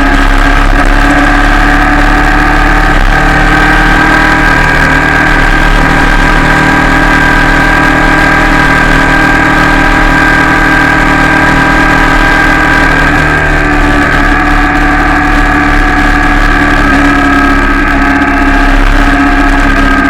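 Royal Enfield Shotgun 650's 648 cc parallel-twin engine and exhaust running at a steady, nearly constant engine speed while the bike is ridden. Loud throughout, with no clear revs or gear changes.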